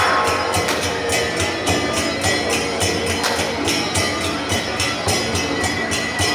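Temple-procession percussion music: drums and cymbals beat a fast, even rhythm, with a high held note sounding over it for most of the stretch.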